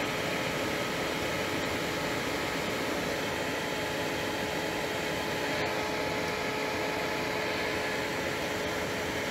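Steady mechanical whir with a constant hum.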